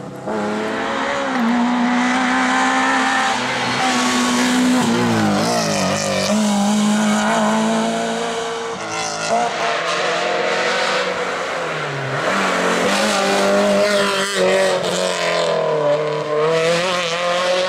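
Rally car engines driven hard: the note climbs through each gear and drops back at the shifts and on lifting off, as the cars go by in turn.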